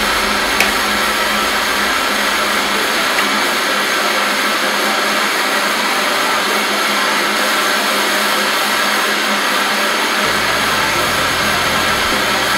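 Two gas blowtorches burning with a steady, loud hiss of flame.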